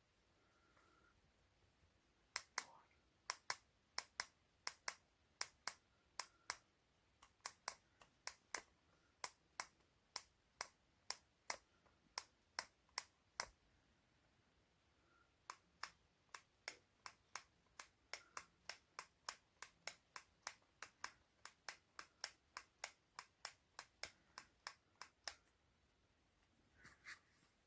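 A long run of sharp, dry clicks, about two a second. They pause for about two seconds midway, then go on. Otherwise near silence.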